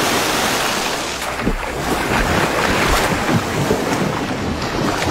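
Loud, steady rushing noise of wind and water.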